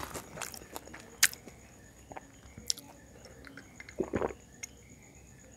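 Close-miked chewing and mouth sounds of eating: scattered short wet clicks and smacks, the sharpest about a second in, with a fuller burst of sound about four seconds in.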